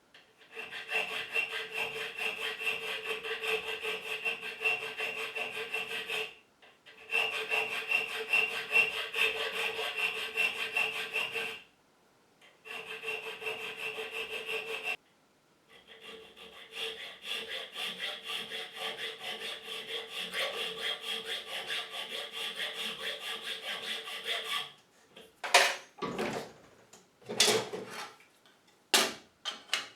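Hand file rasping on a metal key blank in long runs of quick back-and-forth strokes, stopping briefly three times, while the key's bitting is fine-tuned for a lever lock. Near the end the filing stops and a few sharp metallic clacks follow.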